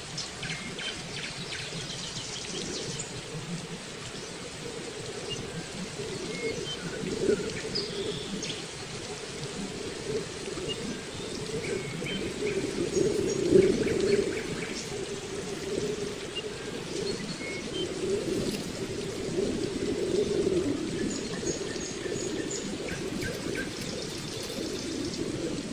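Small birds chirping in short, scattered notes over a steady rushing noise that runs throughout.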